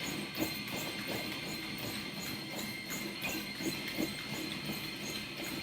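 Running footfalls on a treadmill belt, about three light, even thuds a second, over the treadmill's steady motor whine.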